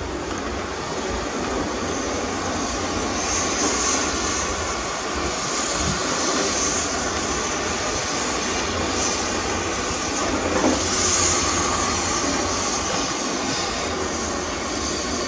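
Heavy earthmoving machinery running, a steady loud mechanical noise with no clear pitch.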